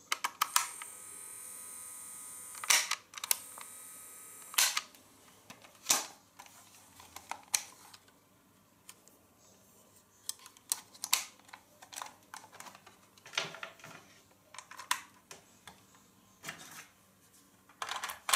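Sharp plastic clicks and knocks from a small cassette player being handled, its battery compartment and cover worked by hand. The clicks come singly and in small clusters throughout, and a steady hiss runs for about four seconds near the start.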